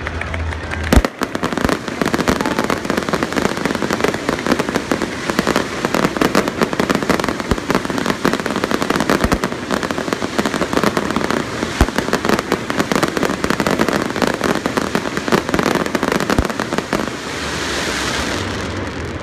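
Fireworks display: a sharp bang about a second in, then dense, continuous crackling of many small bursts with occasional louder booms, easing off near the end.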